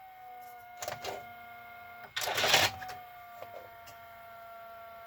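Goldstar VCR's tape-loading mechanism cycling back and forth with no tape inserted: a steady motor whine, a short clatter about a second in, and a louder mechanical clatter of the gears and loading arms about two seconds in. The endless cycling is the fault, which the owner suspects comes from the mode switch.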